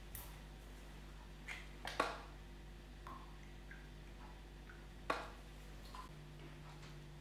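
Milk poured from a small jug onto granola in a bowl, a soft trickle, with a few light knocks and clinks of crockery, the sharpest about two seconds in and another about five seconds in.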